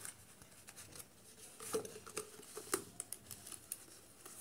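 Faint rustling, crinkling and light scraping of a rolled banana leaf being pushed down into a bamboo tube, with a cluster of short crackles about two seconds in.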